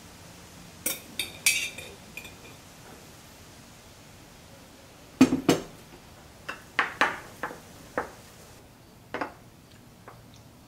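Metal spoon clinking and scraping against a glass jar and a small glass bowl as fish sauce is spooned out and stirred into chili paste: a few clinks about a second in, then a quicker, louder run of clinks around the middle, and one more near the end.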